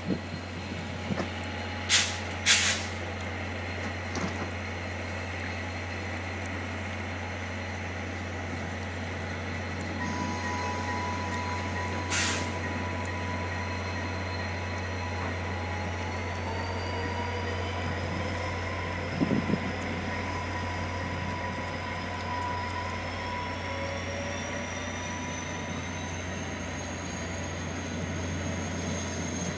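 A VIA Rail diesel passenger train pulling out of the station: a steady low engine hum, a few short sharp air bursts near the start and another about twelve seconds in, then a thin whine that climbs in pitch as the train gathers speed and the passenger cars roll past.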